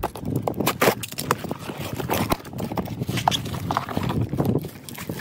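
Small cardboard shipping box being opened by hand and a packaged part pulled out: irregular taps and rustling of cardboard flaps and packaging.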